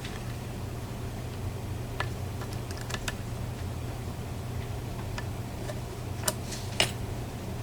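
Small metallic clicks of a lock pick and tension wrench working the pins inside a PACLOCK 90A padlock, scattered and irregular, with two sharper clicks half a second apart near the end. A steady low hum sits underneath.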